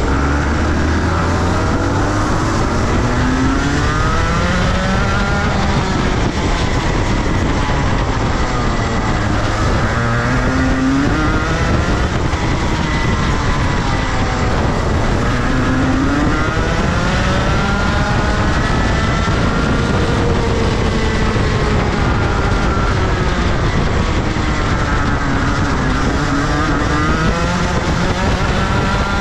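Rotax Senior 125 cc single-cylinder two-stroke kart engine at racing speed, loud and continuous. Its pitch climbs and drops over and over as the kart accelerates and slows around the circuit.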